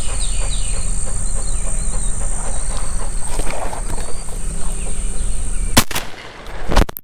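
Steady high insect drone with low wind rumble on the microphone and a few bird chirps in the first second. Near the end, sharp knocks and a clatter as the camera falls off its mount.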